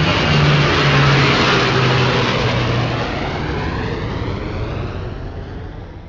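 Jet aircraft flyby sound effect: a loud rushing jet noise with a low hum that drops in pitch. It sweeps down in tone and fades away over several seconds as the jet passes.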